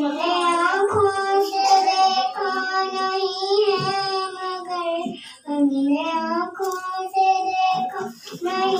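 A young girl singing a naat (devotional Urdu hymn) in long held, gently wavering notes, pausing for breath briefly about five seconds in and again near the end.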